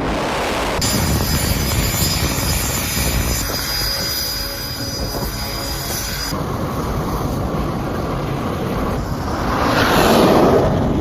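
Aircraft engine noise, a dense steady rush that changes abruptly twice where the footage cuts, swelling to its loudest about ten seconds in.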